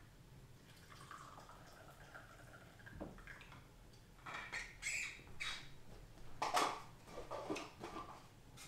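Cookware and utensils being handled while cooking: scraping, clinks and knocks, with the loudest clatter about six and a half seconds in.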